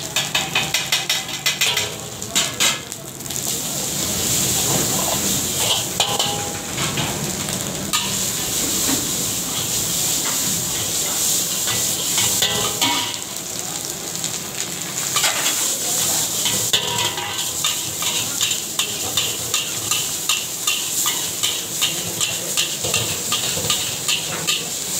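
Rice frying in a large black wok, sizzling steadily while a metal spatula scrapes and tosses it in rapid strokes against the pan. The strokes come thick in the first few seconds and again over the last third, with a stretch of mostly sizzle between.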